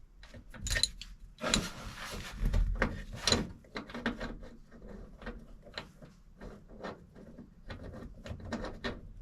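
Clicks, knocks and scraping of metal seat-belt hardware being handled and fitted in place, a rustling, scraping stretch early on giving way to scattered light clicks.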